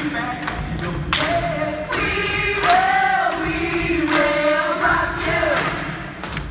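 A stage cast singing together as a choir, with held notes, and a few heavy thuds among the singing.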